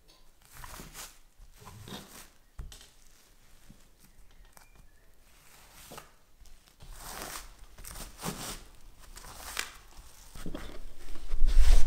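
Plastic sheeting and fabric rustling and crinkling in irregular bursts as a plant-laid cloth is rolled tightly by hand into a bundle, with louder low bumps near the end.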